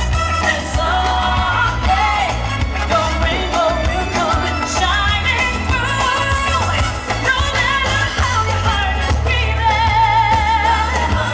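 Loud pop music with a singer's voice over a heavy, steady bass.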